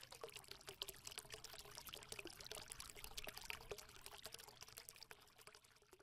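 Faint crackling sound of liquid pouring, made of many tiny pops and clicks, thinning out near the end.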